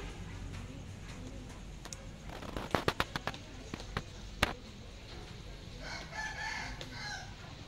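A run of sharp clicks and taps, then a rooster crowing once for about a second near the end.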